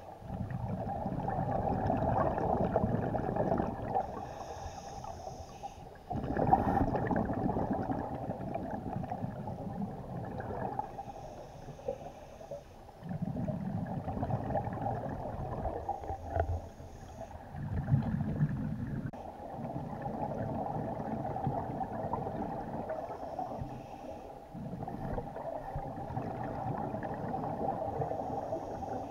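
Scuba diver's breathing heard underwater: bursts of bubbling and gurgling from exhalations recur every few seconds, over a steady muffled rush.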